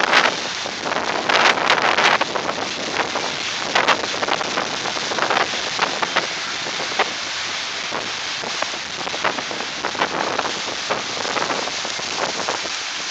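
Tropical-storm wind rushing and buffeting the microphone over wind-driven surf breaking against a seawall. Gusts come and go, loudest in the first couple of seconds.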